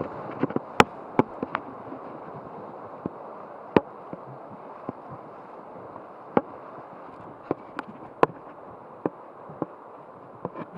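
River water rushing steadily around a raft, with a dozen or so sharp, irregular knocks or clicks on top, the loudest a little under a second in and about eight seconds in.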